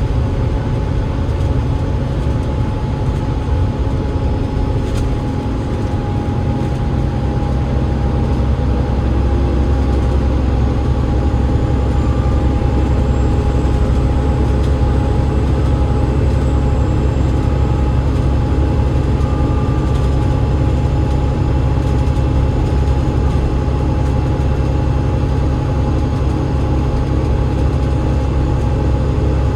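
Alexander Dennis Enviro500 MMC double-decker bus running steadily, its Cummins ISL8.9 diesel engine and ZF EcoLife automatic gearbox giving a deep rumble with a thin, steady whine over it.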